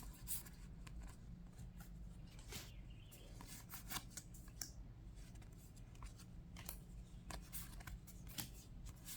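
Yu-Gi-Oh! trading cards being handled and flipped through: faint, irregular clicks and slides of card stock against card stock.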